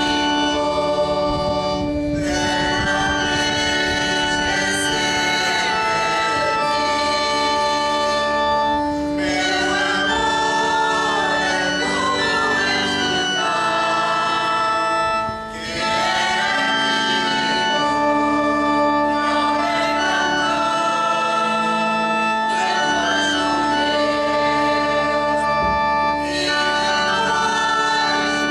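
A choir singing a hymn over an accompaniment of long held chords with a sustained bass.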